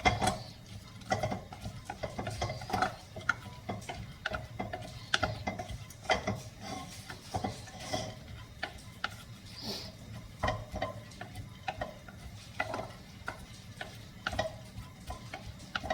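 A spoon stirring and scraping soaked rice as it sautés in ghee in a pan, giving irregular clicks and scrapes several times a second.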